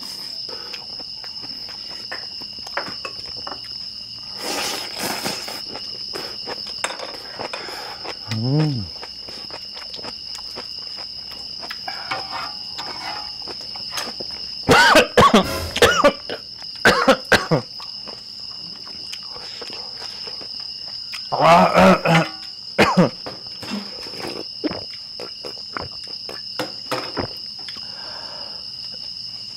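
Crickets chirring steadily at two even high pitches, with scattered clicks of utensils on the griddle pan. Loud short vocal outbursts break in about 15 and 22 seconds in.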